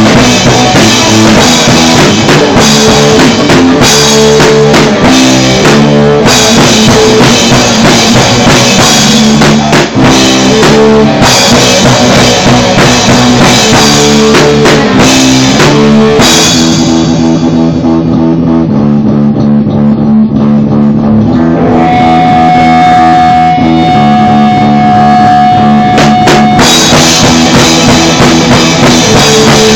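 Punk rock band playing an instrumental passage: distorted guitar, bass and drum kit. About halfway through, the drums and cymbals drop out for about ten seconds while the guitar and bass carry on, with a long held high note near the end of that stretch, before the full band comes back in.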